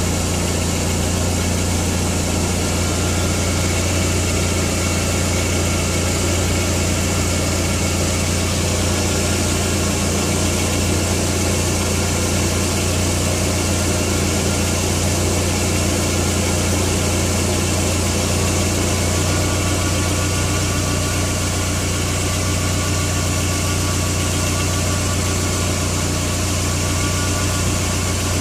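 Skoda Octavia 1.8T's AGU turbocharged four-cylinder petrol engine idling steadily with a rattling, ticking noise, which the owner suspects may be a defective dual-mass flywheel.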